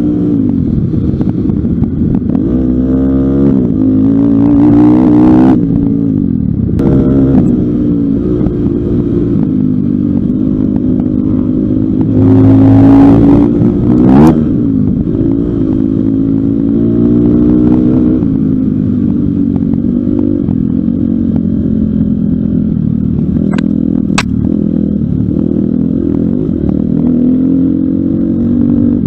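A Pitster Pro LXR250f's 250cc four-stroke single-cylinder engine, heard from on the bike while it is ridden hard on a dirt track. The engine revs up and drops back again and again through gear changes. There are clattering knocks over the bumps, it is loudest just past the middle, and a couple of sharp clicks come later on.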